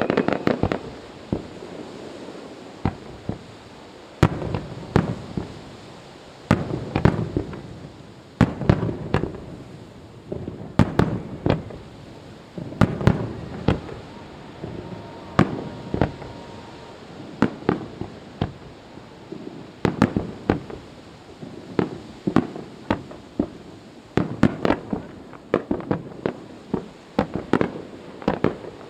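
Aerial fireworks shells bursting over and over, single reports mixed with quick clusters of several bangs a second.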